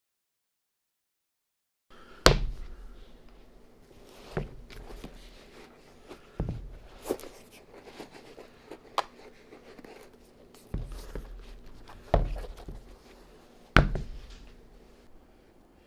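A string of sharp knocks and thuds, about eight, spaced a second or two apart at irregular intervals.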